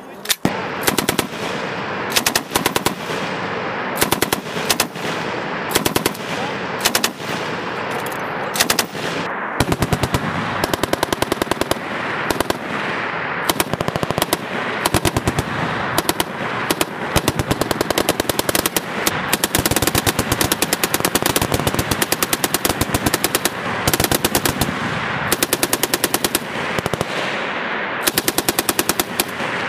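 Several M240 belt-fed 7.62 mm machine guns firing short bursts on a range, one burst after another and often overlapping as more than one gun fires at once.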